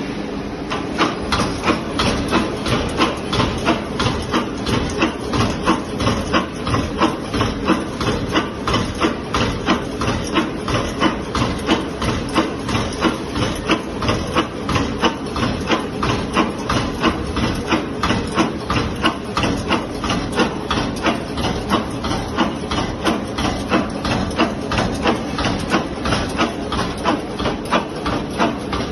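Metal wire forming machine running at speed, clacking metallically in a steady rhythm of about two strokes a second over the continuous hum and hiss of its drive.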